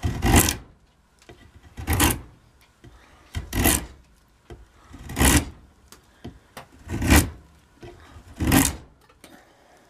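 Hand-forged draw knife pulled through a softwood board in six short shaving strokes, about one every second and a half, each peeling off a curled shaving. The freshly sharpened edge cuts cleanly under light pulls.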